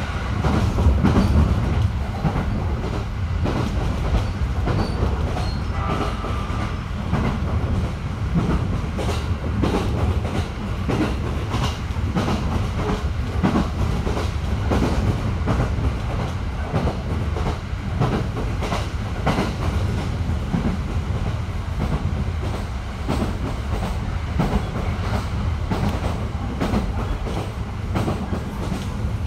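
JR 209 series electric train running at speed, heard from inside the carriage: a steady low rumble with frequent clicks of the wheels passing over rail joints.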